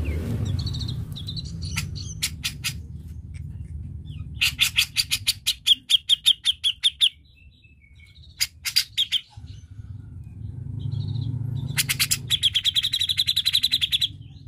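Grey-cheeked bulbul (cucak jenggot) calling in rapid chattering trills of fast repeated notes. There are two long bursts, one about four seconds in and one near the end, with short call phrases between them, over a low steady rumble.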